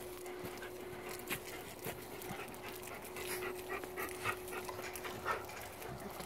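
Gray wolf panting, with soft scuffs as it rolls on the dirt.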